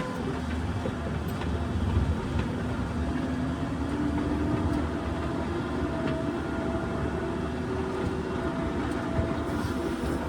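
New Holland skid steer loader's diesel engine running steadily under load, with a few steady whining tones over the low rumble.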